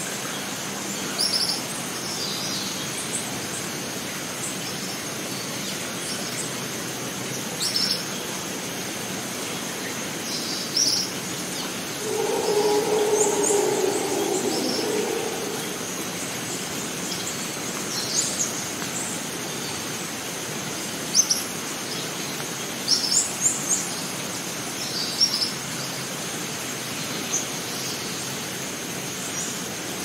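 Rainforest ambience: birds chirping in short high calls scattered throughout, over a steady hiss and a steady high whine. About twelve seconds in, a lower drawn-out sound lasts about three seconds.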